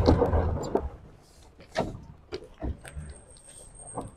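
Scattered knocks and rattles from an open safari jeep's body and fittings on a rough forest track, after a low rumble that fades in the first second. A faint steady high whine sets in about three seconds in.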